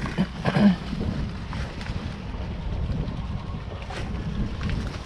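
Wind buffeting the microphone, a steady low rumble, with light rustling of leaves and twigs as hands work through a shrub's branches.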